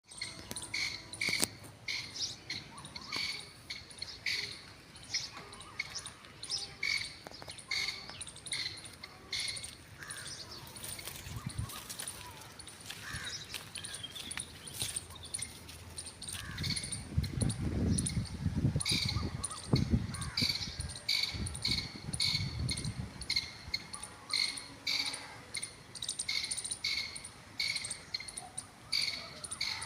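Titar (partridge) calling, a run of short, sharp notes repeated about one to two times a second. A low rumble joins in about halfway through.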